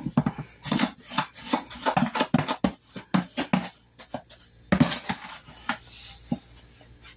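Measuring cup scooping and scraping through granulated sugar in a plastic storage container: a quick run of scrapes and light clatters, with a louder clatter nearly five seconds in, trailing off near the end.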